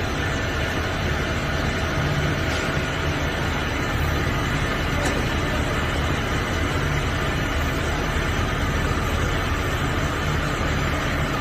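Universal tool grinder running steadily, its motor hum and grinding noise continuous without a break.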